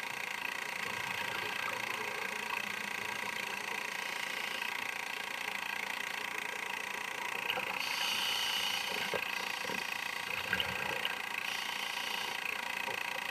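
Steady mechanical hum and hiss of a camcorder running inside an underwater housing. A scuba diver's exhaled regulator bubbles rush over it for about four seconds in the second half, with a few light clicks.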